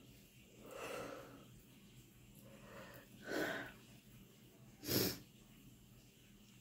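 A woman yawning, then breathing out noisily: a long breathy exhale about a second in, a second noisy breath about three and a half seconds in, and a short, sharp burst of breath, the loudest, about five seconds in.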